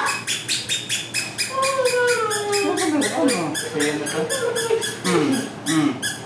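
Puppies whining, with high thin whines that slide down in pitch and overlap, starting about a second and a half in. A fast run of sharp clicks, several a second, goes on underneath.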